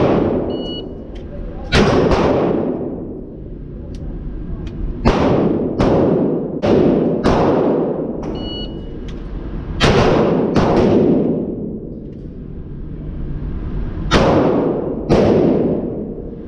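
About a dozen handgun shots, loud and sharp, fired singly, in quick pairs and in short strings, each trailing off in a long echo off the walls of an indoor range.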